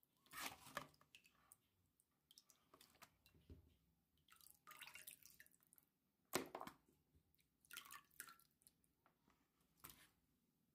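Brined raw chicken pieces lifted out of salt water and laid by hand into a glass bowl: faint drips and soft wet squishes, with one sharp knock about six seconds in.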